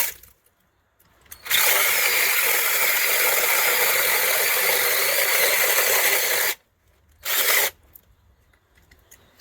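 Small electric chainsaw cutting into wood in bursts: a burst cutting off just after the start, a run of about five seconds, then a short burst of under a second.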